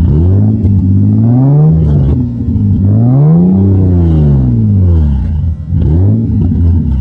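BMW E30 M3's S14 four-cylinder engine revved through its exhaust from idle: one rise and fall, a second higher and longer rev, then a short blip near the end, dropping back to idle each time.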